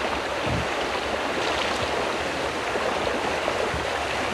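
Steady splashing and churning of water as a pond full of rearing trout thrash at the surface, taking thrown feed pellets.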